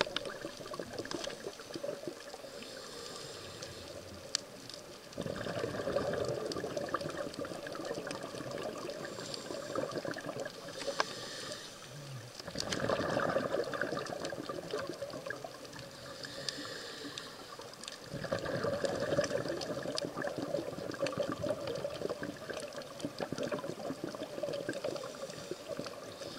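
Underwater sound from a scuba diver's camera: steady rushing and bubbling that swells three times, several seconds apart, in the rhythm of the diver's exhaled regulator bubbles, with light crackling throughout.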